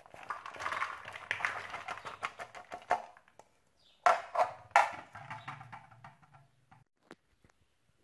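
Leftover carrot peelings and rice being tipped and scraped from a metal bowl onto a metal tray: a scratchy rustling scrape for about three seconds, then two sharp knocks about four and five seconds in.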